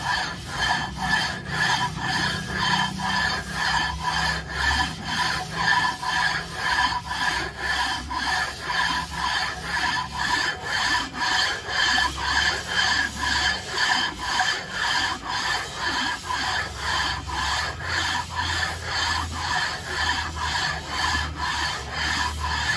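Metal rubbing on metal in a steady back-and-forth rhythm, about two strokes a second: a round cast-metal plate is worked with oil over the face of a Toyota Corolla GLI cylinder head. Each stroke has a rasping sound with a squeaky, ringing edge.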